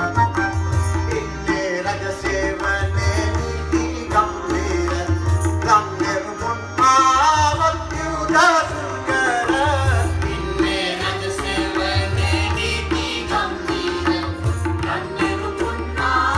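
Live Indian music led by tabla, its low bass strokes repeating under a steady held drone, with a bending, wavering melody line above.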